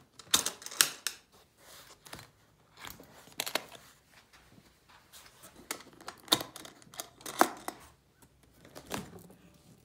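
Brass latches on a hardshell guitar case being flipped open one after another: a series of sharp metallic clicks and snaps spaced about a second or so apart.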